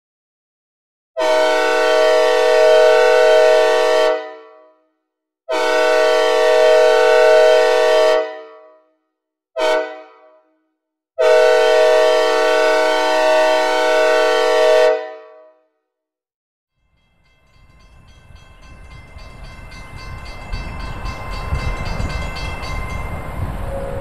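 Synthesized recreation of a Nathan K5LAB locomotive air horn with reverb, sounding a chord in four blasts in the long-long-short-long grade-crossing pattern, each ringing out briefly after it stops. A couple of seconds after the last blast, the low rumble of an approaching train rises steadily.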